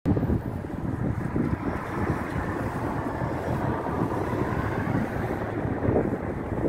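Wind buffeting the phone's microphone in an uneven rumble, over a steady wash of city road traffic.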